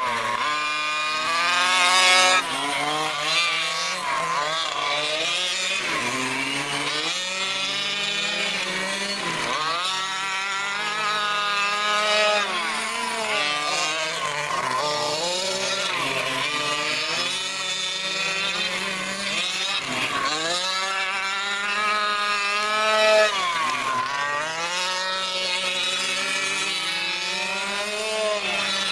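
Two radio-controlled race trucks running laps on a dirt oval, their motors' buzzing pitch rising and falling over and over as they speed up on the straights and ease off for the turns, the two overlapping. The loudest moments come about two seconds in and again near twenty-three seconds, as a truck passes close.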